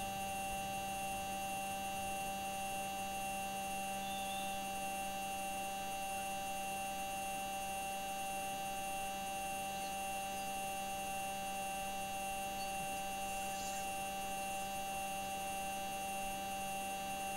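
Steady hum of several fixed tones from the Perseverance Mars rover's own microphone recording, with no wheel crunching: the rover is standing still.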